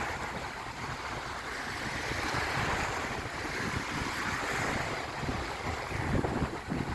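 Lake Erie waves washing onto the beach, the wash swelling around the middle, with wind buffeting the microphone in gusts that grow stronger near the end.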